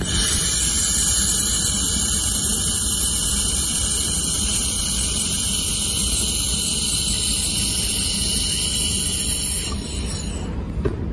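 1 kW handheld laser welder welding 2 mm aluminium: a steady, loud high hiss from the weld that stops about ten seconds in, over a low steady rumble.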